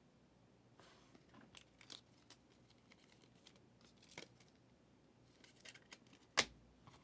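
Faint rustling, scraping and clicking of football trading cards and pack wrappers being handled, with one sharper snap about six seconds in.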